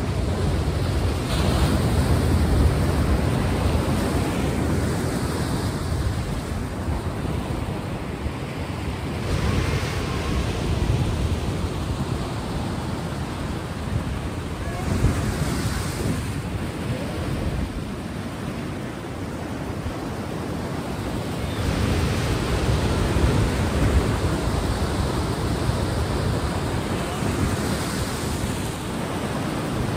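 Sea waves surging and washing on a shore: a steady rush that swells every several seconds as each wave breaks.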